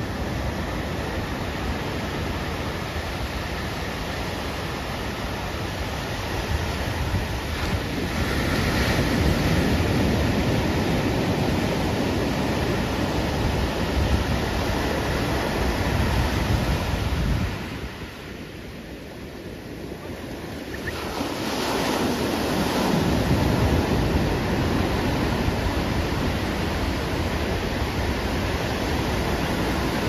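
Ocean surf breaking and washing up the shore, a steady rushing, with wind rumbling on the microphone. It goes quieter for a few seconds past the middle, then comes back up.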